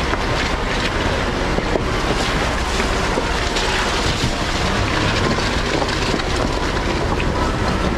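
Jeep Grand Cherokee Trailhawk driving a rocky off-road trail: a steady low engine hum under a dense, continuous crackle of tyres crunching over rock and gravel.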